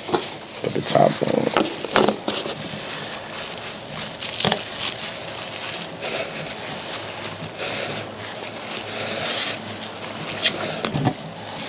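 Bristle brush scrubbing a sneaker with liquid sneaker cleaner: a continuous run of scratchy, wet brush strokes.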